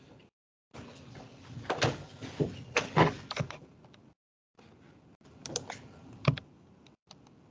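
Computer keyboard typing and mouse clicking in two spells, with a few sharper, louder knocks among them, heard over a video-call microphone that cuts out abruptly between spells.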